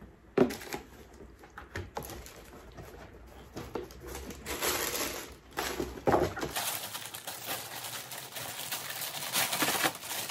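Rustling and crinkling of shoe-box packaging being unwrapped by hand: soft dust bags and paper, then clear plastic wrapping. The sound comes in irregular bursts with small clicks and grows busier in the second half.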